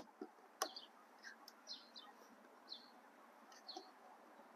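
Near silence with faint bird chirps, short high falling calls repeated a dozen times. A few light clicks near the start, from a metal pick working the locking tabs of a plastic wiring connector.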